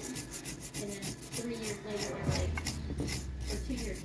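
Quick back-and-forth rubbing strokes, several a second, of something being scrubbed or rubbed by hand, with a low steady hum coming in about halfway through.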